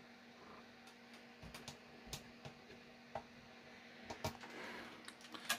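Faint, scattered ticks of metal test-probe tips tapping and sliding on the solder joints of a circuit board, over a low steady hum.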